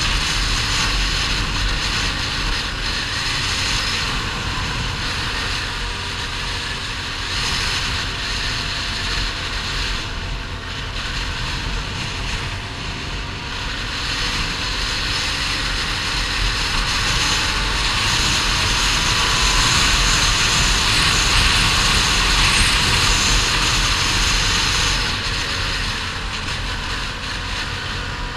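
ATV engine running at a steady cruise on an asphalt road, with heavy wind rushing over the microphone; the engine note drifts slightly in pitch.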